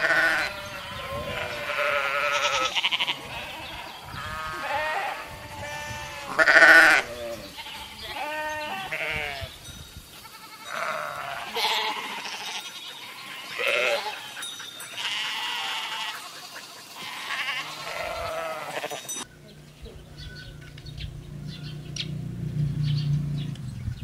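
A herd of goats bleating, many wavering calls overlapping, the loudest about six seconds in. A few seconds before the end the bleating cuts off and a low steady hum with faint ticks takes its place.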